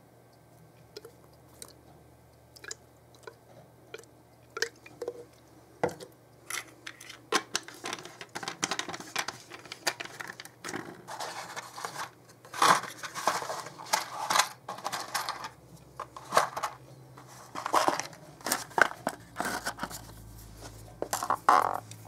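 Crunching and rustling of hands moving a canvas plimsoll and dry, charred debris about in a fireplace. Scattered clicks at first, growing denser and louder from about six seconds in.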